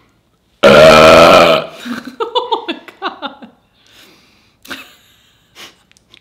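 A person lets out one long, loud burp about half a second in, lasting about a second.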